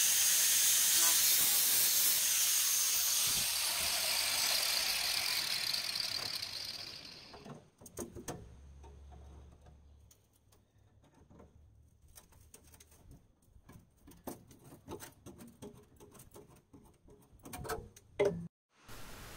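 Angle grinder with a thin cutting disc cutting through rusted sheet steel with an even high hiss, then winding down about six seconds in. Scattered light clicks and knocks of the loosened metal being handled follow, with one sharper knock near the end.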